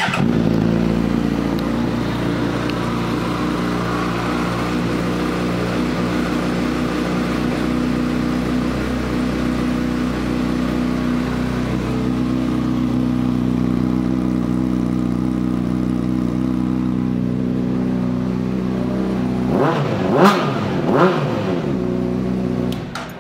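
2006 Honda CBR600RR inline-four engine, fitted with an aftermarket Jardine exhaust, idling steadily. Near the end it is revved a few times in quick blips, then shut off.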